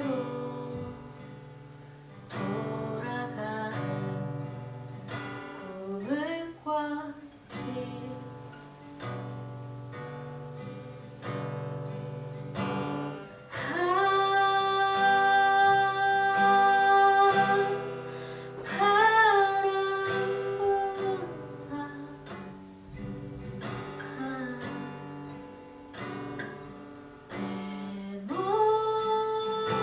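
Music: an acoustic guitar plucked and strummed under a singing voice that holds long notes with slides in pitch.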